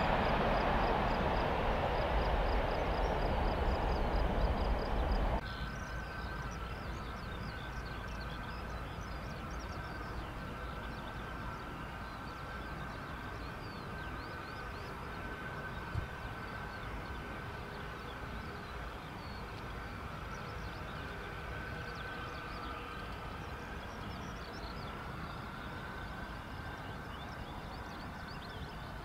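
Boeing C-17 Globemaster III's four Pratt & Whitney F117 turbofans: loud jet noise of the landing for about five seconds, then an abrupt cut to a much quieter, steady engine whine as a C-17 taxis at low power.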